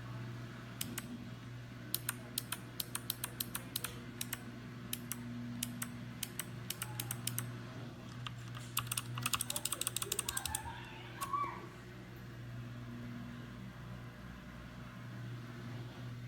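Typing on a mechanical keyboard: scattered keystrokes, then a quick run of them about nine seconds in, after which the typing stops. A steady low hum runs underneath.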